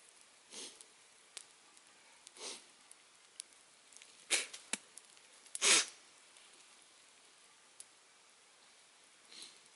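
Campfire crackling: scattered sharp snaps and pops, with two louder ones near the middle.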